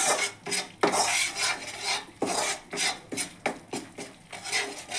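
Metal ladle scraping and knocking against a metal kadhai as wheat flour is stirred and roasted in ghee on low heat, in irregular strokes, several a second at times.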